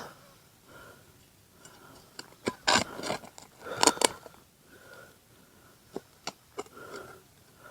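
Spade scraping and crunching into stony soil in a few short bursts, with scattered sharp clicks of stones.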